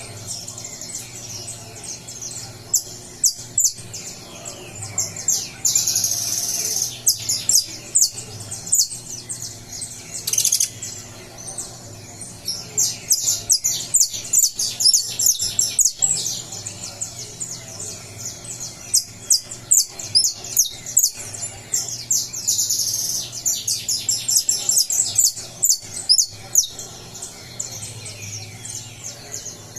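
Saffron finch singing: quick runs of short, sharp, high chirps, broken by louder buzzy trills several times, from a bird just coming out of its moult.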